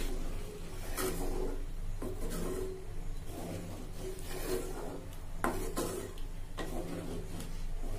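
Wooden spatula stirring a thick curry in a heavy black pot, scraping and sloshing against the pot's sides and bottom about once a second.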